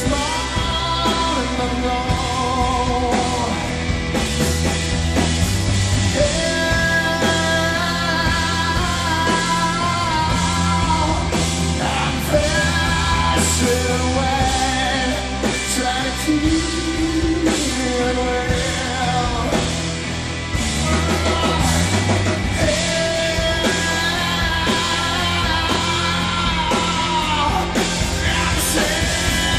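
Live rock band playing: a male singer's long held notes over electric guitar, bass guitar and a drum kit, loud and continuous.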